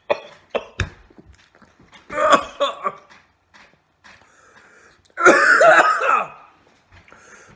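A man coughing and clearing his throat as the heat of a freshly bitten serrano pepper catches in his throat. A few short clicks come in the first second, then a bout about two seconds in and a louder, longer one about five seconds in.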